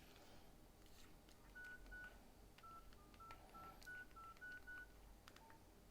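Nokia 6151 mobile phone keypad tones: about ten short, faint beeps at a few different pitches as its keys are pressed, with faint key clicks.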